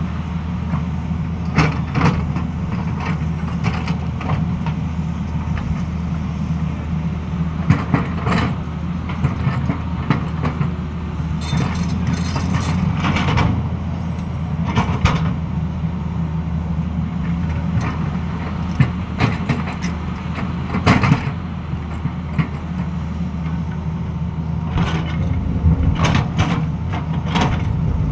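Tata Hitachi crawler excavator's diesel engine running steadily under load while it digs. Sharp clanks and knocks come every few seconds as the steel bucket bites into the rocky slope.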